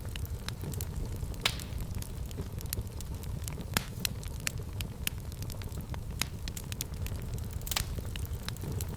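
Fire in a fireplace crackling: a steady low rumble of flames under a constant scatter of sharp pops, with three louder pops about a second and a half in, near the middle and near the end.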